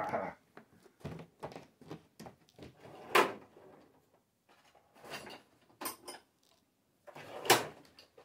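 Someone rummaging for a wrench among tools: scattered clicks, knocks and clatter of metal being handled, with two louder knocks about three seconds in and again near the end.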